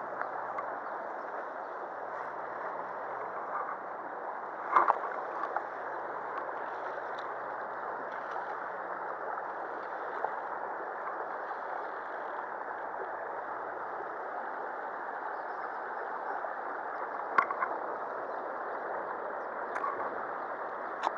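Shallow stream running over stones: a steady rush of water, with a few brief knocks and clicks, the loudest about five seconds in.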